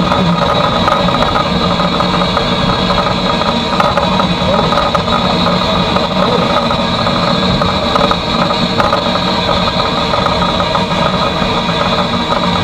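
Steady mechanical running noise of the A1 Pacific steam locomotive 60163 Tornado, heard from its footplate.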